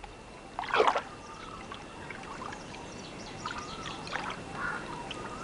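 Pond water splashing and trickling as soft-shell turtles feed at the surface: one louder splash just under a second in, then faint dribbling and lapping.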